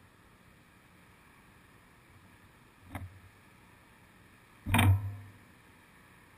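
Two knocks over a low, steady hiss: a light one about three seconds in and a much louder, heavier one about a second and a half later that dies away within half a second.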